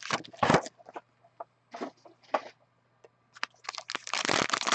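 Plastic wrapper on a pack of trading cards crinkling and crackling as hands handle it and tear it open. It comes in short bursts at first, with a lull in the middle, and turns into steady crackling near the end.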